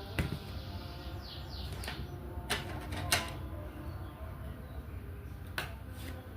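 Sharp, scattered clicks of a diamond painting pen tapping resin drills onto the adhesive canvas, about five in all, with a few short falling bird chirps about a second in.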